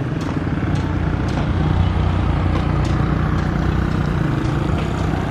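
Boeing 737-200's Pratt & Whitney JT8D turbofan engines running on landing approach: a steady low rumble that grows a little louder about two seconds in.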